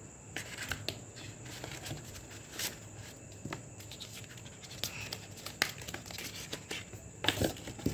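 Hands handling the earbud packaging and charging case close to the microphone: scattered small clicks, taps and scratches over a faint low hum.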